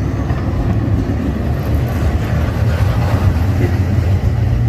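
Street traffic: a steady low engine rumble from a vehicle close by, with voices mixed in.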